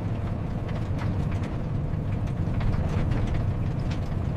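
Livestock trailer on the move: a steady low road rumble with scattered light rattles and knocks.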